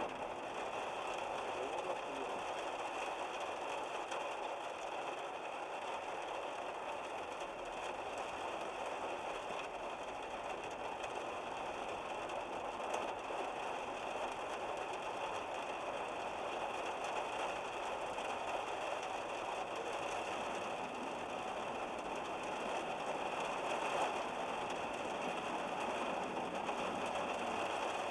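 Heavy torrential downpour: a dense, steady hiss of rain pouring down without letting up.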